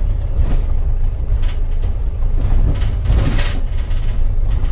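Toyota 14B 3.7-litre mechanically injected diesel in a Toyota Coaster bus, running under way and heard from the driver's cab as a deep, steady rumble. A few brief rattles come through about one and a half and three and a half seconds in.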